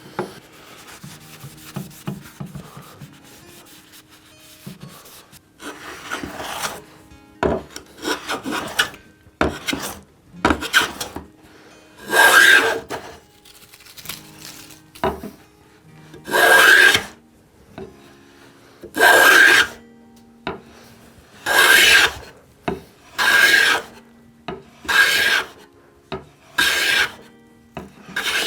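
Ohio Tools No. 5½ corrugated hand plane taking shavings from a wooden board in repeated strokes, one about every two seconds. Each stroke is a scraping hiss with a slight whistle, faint at first and louder from about halfway.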